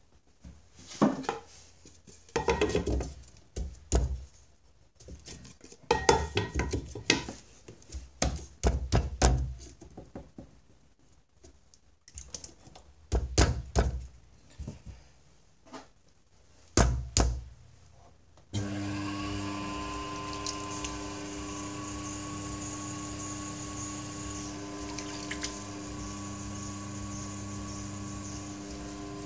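Irregular knocks and thunks with scraping between them, as hands and clay work on a potter's wheel batt. About two-thirds through, the electric potter's wheel starts and runs with a steady hum.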